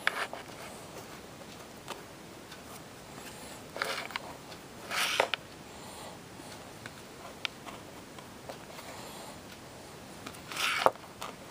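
Trading cards being handled: a few brief scraping, sliding sounds, the loudest about five seconds in and another near the end, with light clicks between, over quiet room tone.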